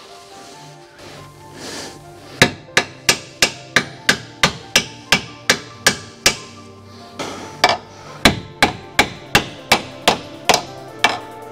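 Rapid hammer blows, about three a second, driving the lower control arm's ball joint up into the steering knuckle of a Renault Mégane 2's front suspension. They start about two seconds in and break off briefly midway before carrying on.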